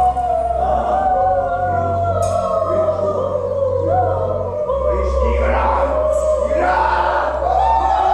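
Background music: choir-like voices holding long, gliding notes over a deep bass drone, with a sharp hit about two seconds in and another about six seconds in.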